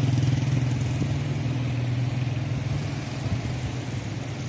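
A motor vehicle engine running steadily, its sound fading gradually as it moves away.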